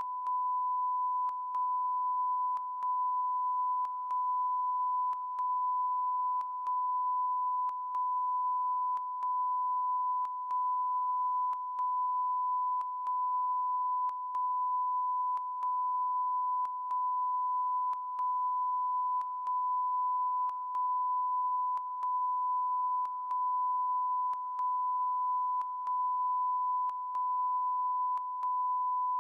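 Electronic beep tone at a single steady, high pitch, held continuously with a very short break about every second and a half: a never-ending beep on a television broadcast's sound.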